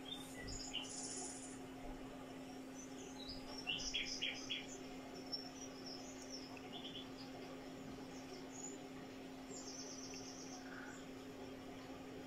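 Birds chirping and calling: scattered short high notes, a quick run of notes about four seconds in, and a fast buzzing trill about ten seconds in, over a faint steady low hum.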